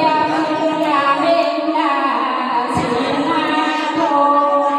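A woman singing a Mường folk song (hát Mường) through a microphone, in long held notes that slide down between pitches.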